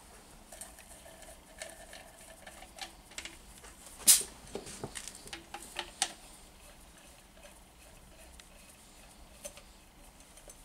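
Light clicks and scraping from a compression tester's hose being worked in the spark-plug well of a 1.6-litre Nissan K4M engine, as the tester is moved from one cylinder to the next. A sharper click about four seconds in and another near six seconds.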